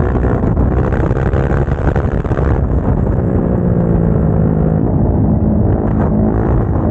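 Motorcycle engine running on the road, its pitch rising and easing off as the throttle is worked, with a steadier stretch in the middle.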